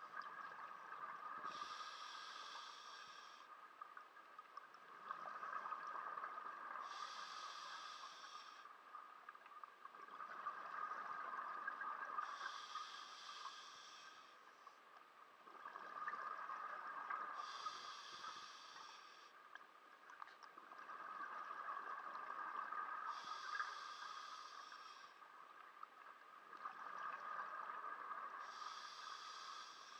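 Scuba diver breathing through a regulator underwater: six slow, even breath cycles about five seconds apart, each a short hissing burst followed by a longer rush of air and bubbles.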